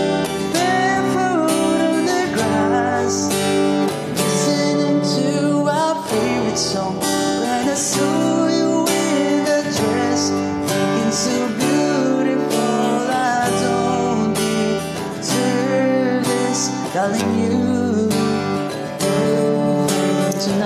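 Small-bodied acoustic guitar strummed in a steady rhythm, with a man singing over it.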